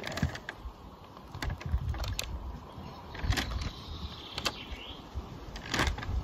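Posca paint marker pressed down on its nib to pump ink through, giving irregular sharp clicks, over a low rumble of wind on the microphone.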